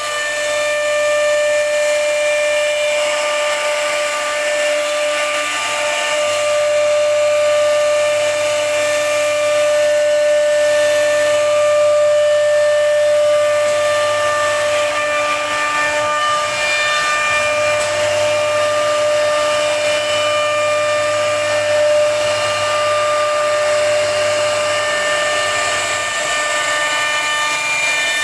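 CNC router spindle running at high speed with its carving bit cutting grooves into wood: a steady high-pitched whine with a ringing overtone series over the hiss of the cut.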